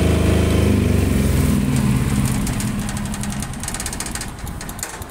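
Single-cylinder air-cooled 833 cc diesel engine of a Hayabusa HY12800SE generator running unloaded, then switched off: about a second in its pitch starts falling and it fades as the engine winds down, with a rapid clatter of its last slow strokes near the end.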